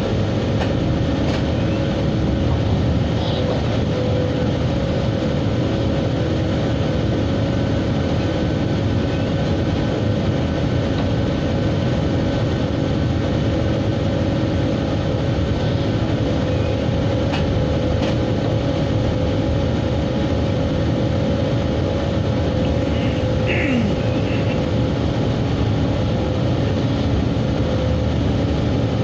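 Steady running noise of an electric train under way, heard from on board: a constant rumble of wheels on rails with a steady droning tone over it and a couple of faint clicks.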